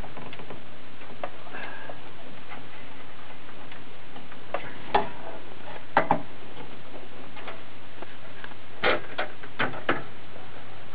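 Scattered sharp clicks and knocks of a RAM stick being pushed down into a desktop memory slot, plastic against plastic, over a steady hiss. There is one click about five seconds in, a double click about a second later, and a cluster of four near the end.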